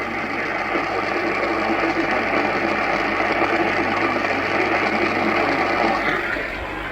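Heavy static from an AM radio relaying an Emergency Alert System broadcast: a steady, loud hiss that drops away about six seconds in.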